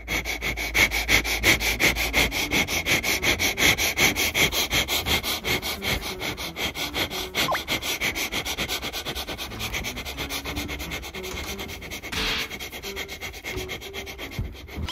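A person sniffing rapidly and repeatedly right next to the microphone, about four short sniffs a second, kept up without a break.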